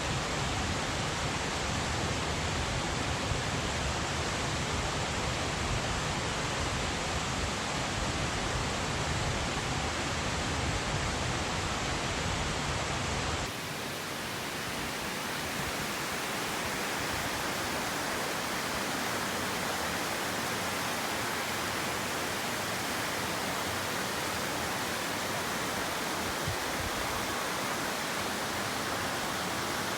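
Steady rushing of a small waterfall, Zatō Falls, pouring into its plunge pool. About halfway through the sound changes abruptly, losing its low rumble and becoming a brighter hiss.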